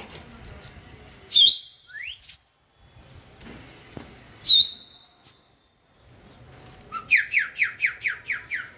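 Loud, close human whistling of the kind pigeon fliers use on their flock: two long whistles that sweep up sharply and hold one high note, then near the end a quick run of about eight short falling whistle notes.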